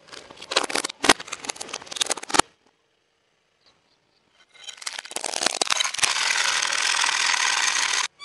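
Hard plastic toys cracking and shattering under a car tyre on asphalt: a burst of sharp snapping and crunching, a short pause, then a longer run of crackling and crunching that goes dense and steady before stopping suddenly.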